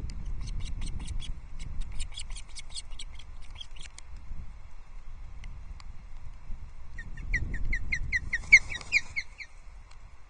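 Osprey alarm calling. First comes a rapid run of high, piping notes lasting about four seconds. After a pause, a second, louder series of about a dozen sharp whistled notes follows at around five a second.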